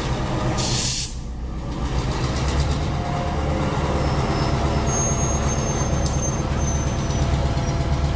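EMD GP10 diesel-electric locomotive running steadily as it shoves a cut of boxcars. Boxcar wheels roll along the rail, with a short sharp hiss of air just under a second in. From about four seconds in there are faint, intermittent thin squeals from the wheels on the rail.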